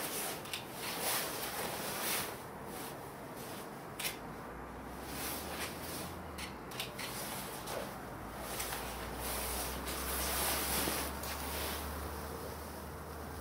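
Rustling and clicking handling noise on the microphone, with a low steady hum setting in about four seconds in.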